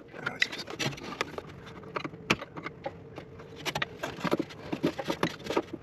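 Irregular clicks, taps and scrapes of a screwdriver and fingers prying at the plastic safety lock of the EVAP vent valve's electrical connector.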